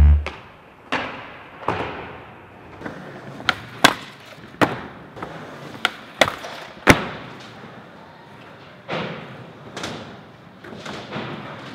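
Skateboards clattering: a dozen or so sharp tail pops, landings and board impacts on a metal rail, with wheels rolling between them and each hit echoing in a large hall. The loudest crack comes about seven seconds in.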